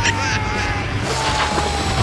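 Two long whistle tones, each falling slowly in pitch, over a steady low rumble.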